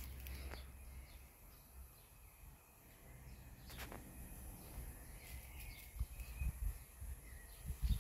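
Quiet outdoor ambience with a few faint rustles and clicks and soft low thumps near the end.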